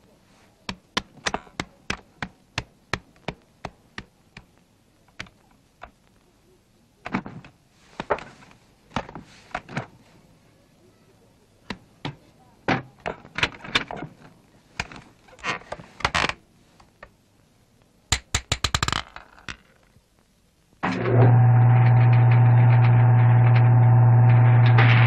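A run of sharp, evenly spaced knocks, about three a second, then scattered clicks, taps and rustles with a quick rattle. Near the end a loud, steady electric buzz with a deep hum starts suddenly and holds.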